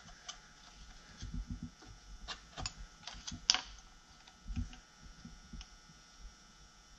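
Light, irregular metallic clicks and knocks as a VW Type 1 generator is handled and worked loose in its generator stand, with one sharper click about three and a half seconds in.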